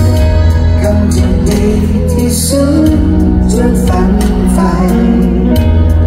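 Loud live band music over a concert hall's sound system, heavy in the bass, with a melody line running over sustained chords.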